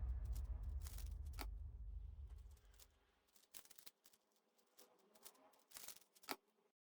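A GAN 356 M magnetic speed cube being turned: scattered quick clicks and snaps of its layers, the loudest near the end. Background music fades out over the first few seconds.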